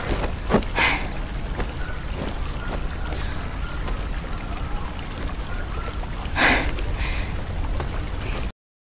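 Steady low outdoor background rumble with faint ticks and two short breathy rushes of noise, about a second in and about six and a half seconds in; the sound cuts off suddenly near the end.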